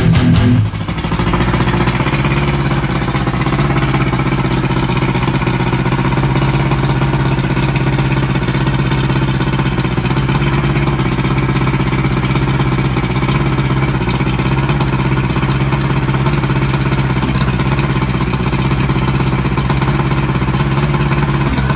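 1987 Johnson 90 HP two-stroke V4 outboard running at a steady idle, started for the first time in eight years.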